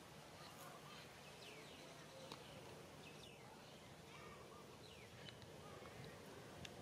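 Near silence: a quiet outdoor background with a few faint, short high chirps scattered through it.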